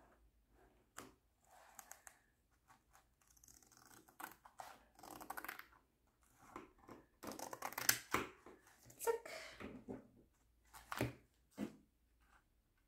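Scissors snipping through the edge of a diamond-painting canvas to cut out its colour legend: a run of irregular short snips, with rustling of the canvas and paper as they are handled.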